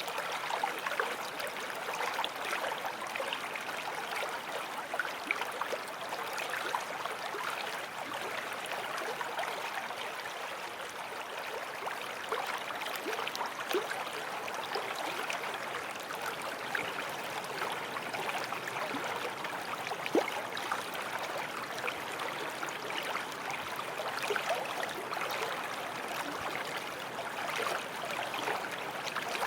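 Forest stream flowing over stones: a steady rush of water with many small bubbling splashes and plinks.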